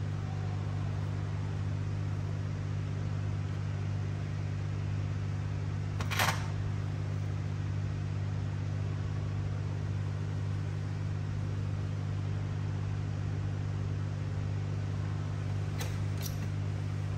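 A steady low hum, with a single sharp knock about six seconds in and two light clicks near the end.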